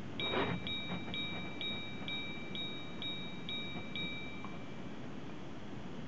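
Girard-Perregaux 1966 minute repeater striking the hours: about nine evenly spaced strikes on one gong, roughly two a second, each ringing on, after a short rustle as the mechanism is set off.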